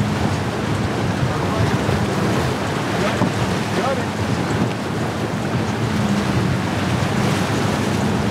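Wind rushing over the microphone and waves breaking in a rough inlet, with a small boat's outboard motor running underneath as a low steady hum that comes up near the end.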